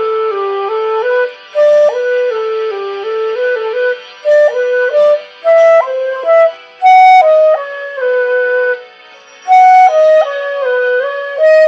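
Solo concert flute playing a slow melody in the key of G, one sustained note after another in short phrases, with brief pauses for breath between phrases.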